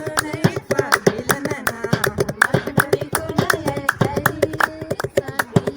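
Voices singing together over a fast, steady rhythm of sharp claps or hand percussion.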